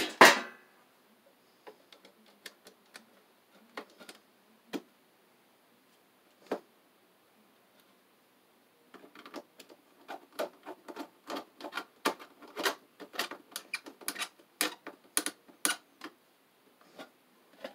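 Hand tools clicking and scraping on copper wire: a sharp snap at the start as the white neutral wire is stripped further, then scattered clicks. Over the last several seconds comes a dense run of small clicks and scrapes as a screwdriver works the neutral wire into the GFCI breaker's lug.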